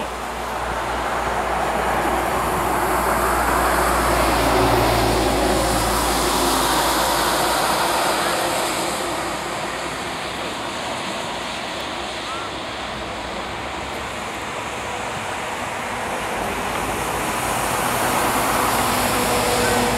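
Wind buffeting the camera microphone: a loud, steady rushing noise that swells and eases slowly, with a low rumble through the first half.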